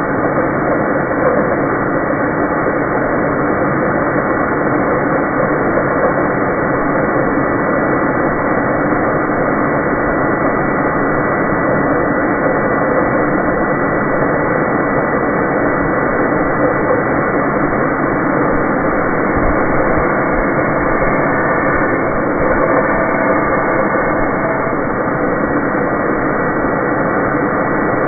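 Homemade bandsaw blade sharpener running, its motor-driven grinding wheel working steadily over the blade's teeth as the blade is fed along. The sound is a continuous, even machine noise.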